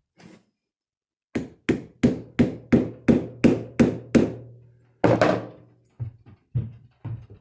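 Hammer blows: a steady run of about nine strikes, roughly three a second, then one heavier blow, then a few lighter taps.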